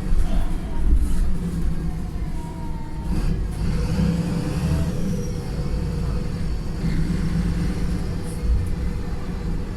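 Wright Pulsar single-deck bus's diesel engine running under way, heard from inside the saloon, with the thrash of a tired engine. A faint whine rises briefly about two to three seconds in.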